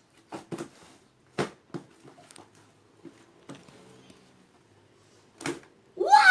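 Scattered short sticky clicks and smacks of homemade slime being handled and pulled, about eight in all with quiet gaps between; a child's loud falling "uau" starts right at the end.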